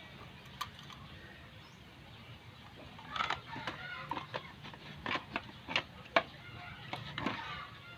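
Chickens clucking in a string of short, loud calls from about three seconds in, over a low steady hum, with a single sharp click about half a second in.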